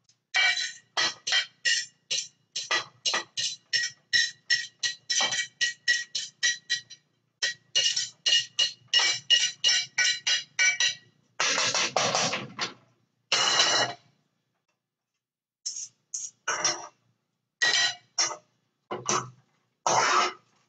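A utensil and a china plate clinking and scraping against a saucepan as chopped onion is knocked off the plate into the pan. There are about three ringing clinks a second, then two longer scrapes about twelve seconds in, then scattered clinks.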